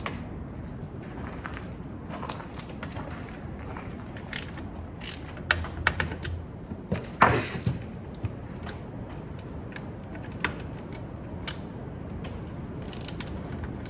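Hand tools and metal parts clicking and knocking at irregular intervals as the rear shock of a KTM 65 dirt bike is unbolted, with one louder metal clank about seven seconds in.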